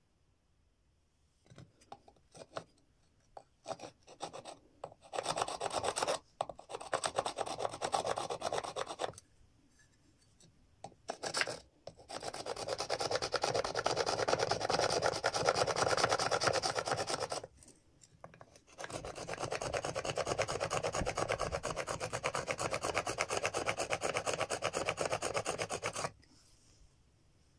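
A rough stone rubbed fast back and forth against an animal bone, grinding it down to shape it: a rasping scrape, first in a few short strokes, then in several long bouts with brief pauses.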